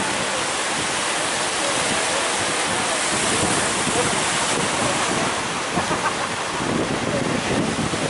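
Ocean surf breaking and washing up the beach in a steady loud rush, with wind buffeting the microphone.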